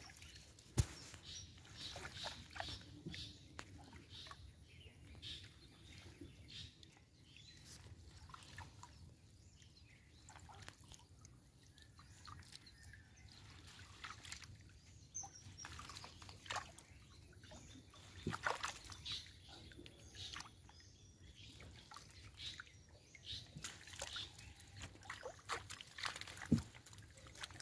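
Water dripping and sloshing as a long collapsible ring-net fish trap is hauled up out of shallow paddy water beside a wooden boat, with scattered small knocks and splashes, one sharp knock about a second in.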